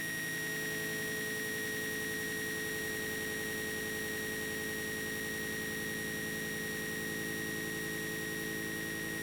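Raw binary data played as audio: a steady electronic drone of several held tones, the highest a thin whistle, over a buzzing hiss.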